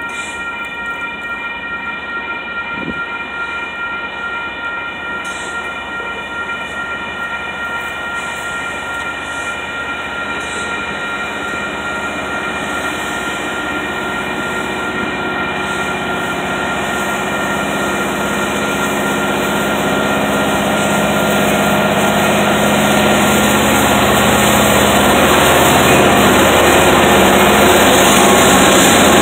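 Railroad crossing bell ringing steadily as a Union Pacific diesel freight train approaches. The locomotive's engine rumble and the rolling noise grow steadily louder until it passes close by near the end, with covered hopper cars rolling behind.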